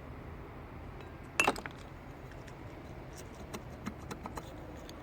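Metal pieces of a failed AC compressor clutch pulley bearing clinking as they are handled: one sharp clink about one and a half seconds in, then a run of light ticks.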